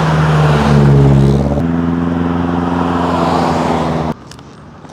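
Car passing close at highway speed: tyre roar with a steady engine note whose pitch steps up about a second and a half in. The sound breaks off abruptly about four seconds in.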